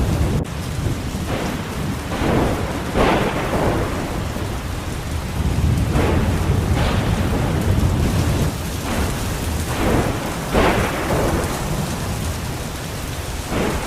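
Thunderstorm: steady heavy rain over a continuous low rumble of thunder, with short swells coming and going every second or two.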